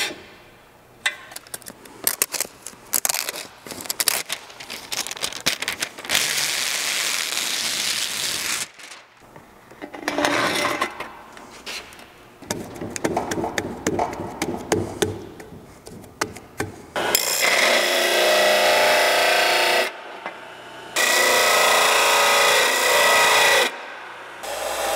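Changing the sanding disc on a King Canada disc sander: the peel-off sheet rustling and a run of clicks as the new adhesive disc is handled and pressed onto the plate. Later come two long, loud spells of the disc sander running, several seconds each, that start and stop abruptly.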